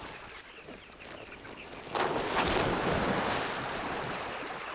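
Sandy riverbank crumbling, then about two seconds in a large slab of the bank crashes into the river with a sudden heavy splash that slowly dies away.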